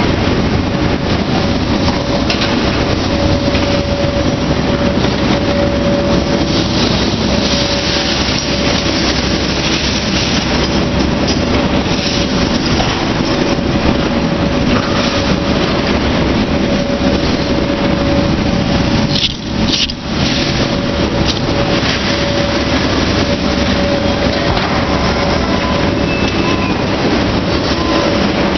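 Loud, steady noise of heavy machinery running, with a constant hum tone, dipping briefly about two-thirds of the way through.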